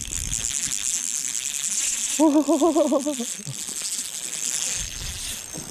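Fishing reel buzzing with fast, fine clicks while a hooked fish is played on the line. The buzz breaks off about two seconds in, then resumes more quietly. During the break a man's voice gives a short, wavering 'ohh'.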